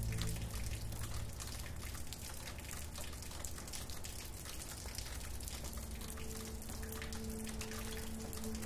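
Steady rain patter, a dense spread of small drops. A soft held music pad fades out in the first second, and a low sustained note comes back in about six seconds in.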